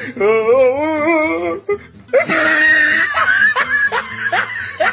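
A person laughing hard: a long wavering laughing cry, then from about two seconds in a run of rapid, wheezing laughs.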